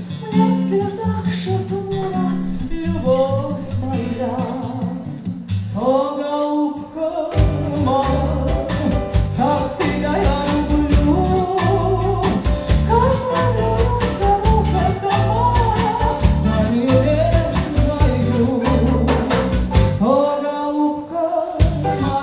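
Live rock band playing: singing and guitar, with bass and drums coming in strongly about seven seconds in and dropping out briefly near the end.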